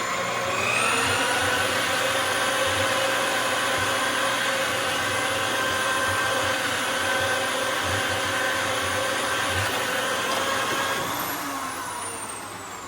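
Electric motor of a Stripmeister wire-stripping machine running as a long length of copper cable is fed through it: a steady whine that steps up in pitch about half a second in, then fades with a falling whine near the end.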